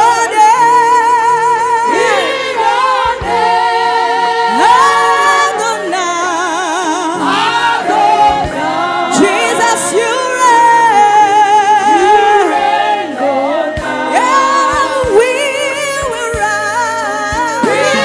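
Gospel praise singing: voices sing long, wavering held notes with heavy vibrato over a steady instrumental accompaniment.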